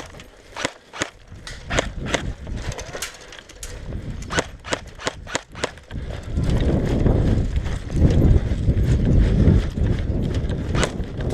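Airsoft guns firing single shots: sharp pops a few times a second. From about six seconds in, a loud low rumble buffets the camera microphone, with a few more shots near the end.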